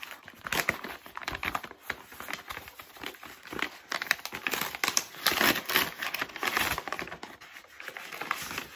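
A mailer envelope being opened and handled by hand: irregular crinkling and rustling of the packaging, busiest about halfway through.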